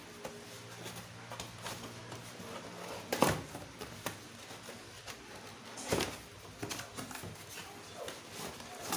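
Packaging being handled and opened: light rustling and scattered clicks, with two sharp knocks about three and six seconds in.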